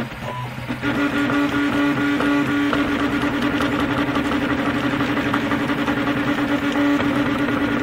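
Stepper motors of a RepRap Mendelmax 3D printer whining in steady tones as the print head moves through a print. The sound drops briefly in the first second, and the pitch shifts as the moves change.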